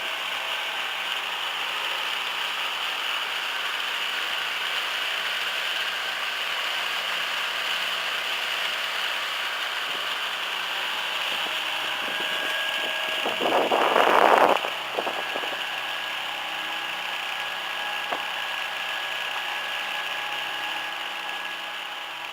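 Motor boat's engine running steadily while under way, with a brief louder rush of noise a little past the middle.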